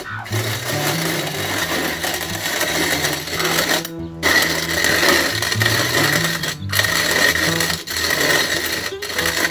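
Hand-cranked metal grain mill grinding dry, hard corn into cracked corn: a steady gritty grinding, broken by a few very short gaps.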